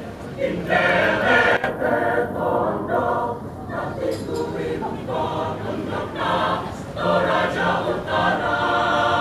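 Choir singing, the voices swelling louder about a second in and again from about two-thirds of the way through.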